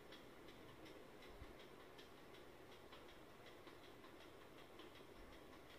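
Near silence: room tone with a faint, even ticking, a few ticks a second.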